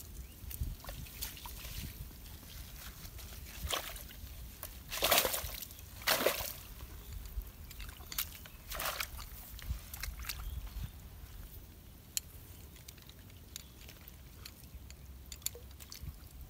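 Splashing and sloshing in shallow, muddy pond water, with a few short louder splashes about five and six seconds in and lighter ones around four and nine seconds.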